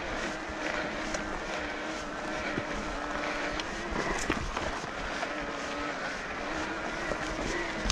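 Specialized Levo e-bike's mid-drive motor whining steadily under pedal assist, its pitch wavering slightly, over the crunch and rattle of tyres on a stony trail, with a couple of short knocks from the bike about two and a half and four seconds in.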